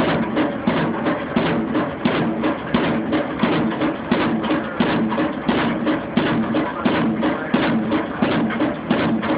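Pile-driving hammer striking a pile in a fast, even rhythm, a few blows a second, each blow a sharp knock with a ringing clang.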